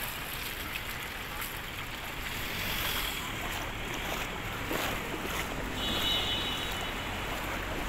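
Shallow floodwater lapping and sloshing on a flooded road, heard as a steady noisy wash with wind on the microphone. A low steady hum comes in about three seconds in.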